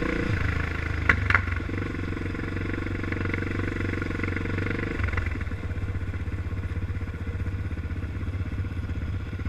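Yamaha Raptor 700's single-cylinder engine running and easing off, with two sharp knocks about a second in, then settling to an even, pulsing idle from about halfway.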